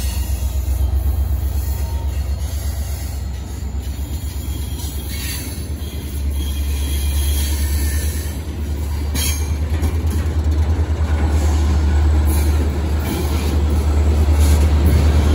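A freight train of tank cars rolls past at close range: a loud, continuous rumble of wheels on the rails that grows heavier about six seconds in. A few brief sharp noises cut through it about 5, 9 and 12 seconds in.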